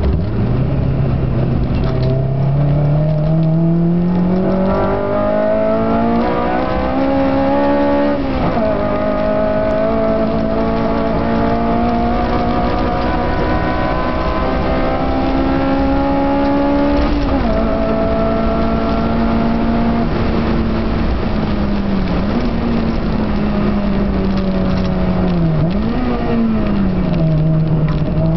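Car engine heard from inside the cabin, pulling hard with its pitch climbing steadily, then dropping sharply at upshifts about eight and seventeen seconds in. After that it holds a fairly steady pitch, with brief dips as the throttle is lifted and a lower note near the end.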